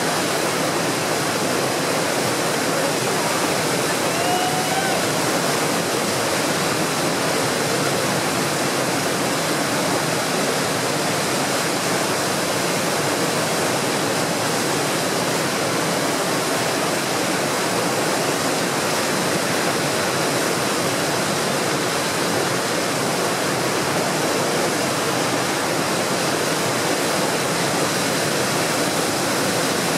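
Steady rush of whitewater from tidal rapids in full flow, the fast current breaking over a standing wave.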